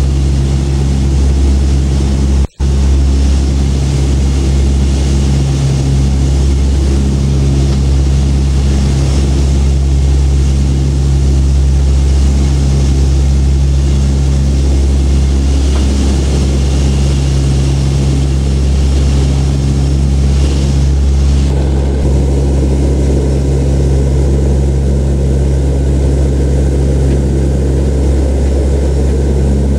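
Steady drone of a C-130's Allison T56 turboprop engines and propellers heard from inside the cabin: a constant low hum with several steady tones, while the aircraft climbs after takeoff. The sound cuts out for an instant about two and a half seconds in, and its tone shifts slightly about 21 seconds in at a break in the recording.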